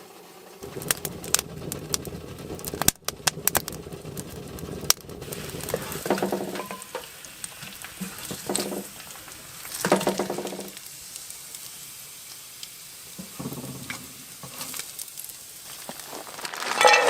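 Breakfast sizzling and crackling in a frying pan over a camp stove or fire, with sharp clicks and a few brief pitched squeaks over the hiss.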